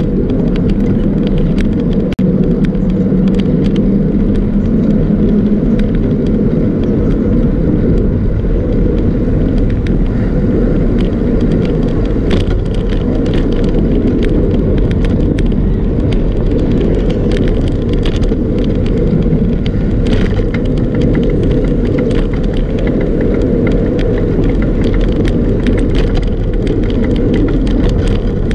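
Steady low rumble from a bicycle riding on a paved path: tyre and road vibration and air rushing past, picked up by a camera on the moving bike, with scattered small clicks and rattles from bumps.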